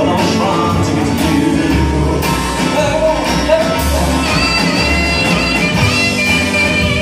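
Live band music with an electric guitar and an upright double bass playing steady low bass notes under frequent short percussive hits. From about four seconds in, a high, held melody line comes in over the top.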